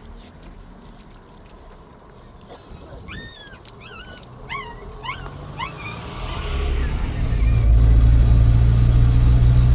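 A motor vehicle's engine rumble swells in from about six seconds in and then runs loud and steady. Before it, a few short chirping calls are heard.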